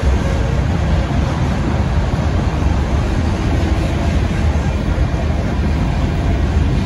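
Steady rolling noise of a freight train of gravel hopper cars passing, mixed with a tractor-trailer driving by close at hand.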